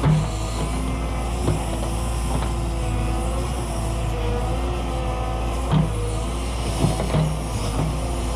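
Cat 314E excavator's diesel engine running steadily under load, with a hydraulic whine that slides up and down in pitch as the boom and bucket move. Several short clunks come through, near the start, about a second and a half in, and a cluster late on.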